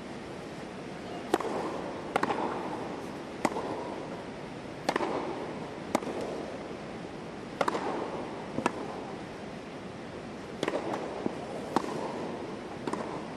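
Tennis rally on a grass court: sharp pops of the ball off the rackets and on the grass, about one a second, trading back and forth over a steady background of the stadium.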